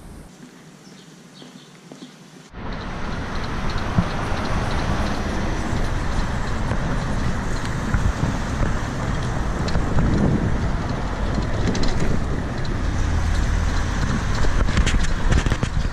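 Steady city traffic noise with a low rumble, starting abruptly about two and a half seconds in after a quieter stretch.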